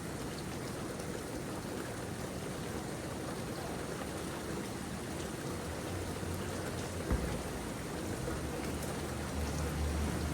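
Steady rain falling, an even hiss of drops, with a single sharp knock about seven seconds in and a low rumble building toward the end.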